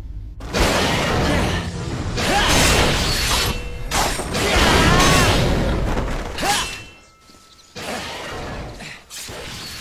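Tokusatsu battle sound effects: a run of loud crashing and shattering impacts as a giant robot dinosaur attacks, dying down about seven seconds in.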